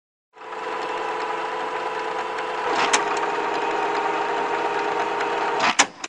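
A steady mechanical hum with a constant drone, broken by a click about halfway through, then a louder click near the end, where the hum cuts off abruptly.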